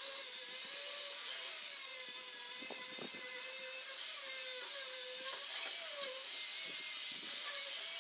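Angle grinder grinding steel: a steady, loud high-pitched hiss over a motor tone that wavers up and down in pitch as the load on the disc changes. It is knocking down sharp edges on steel parts before welding.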